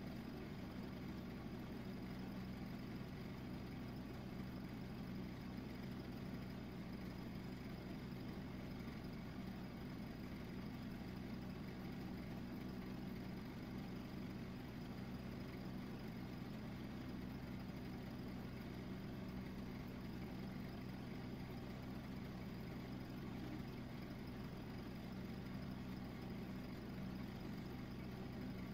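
A steady low machine hum with a few constant low tones, unchanging throughout.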